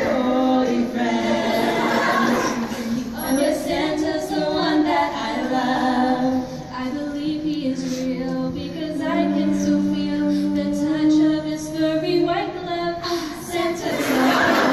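Female a cappella quartet singing in close harmony into handheld microphones, amplified, with long held chords in the middle.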